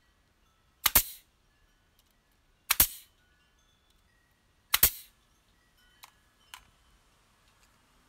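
Pneumatic nail gun firing three nails into pallet wood, three sharp shots about two seconds apart, each a quick double crack with a short tail. Two lighter clicks follow near the end.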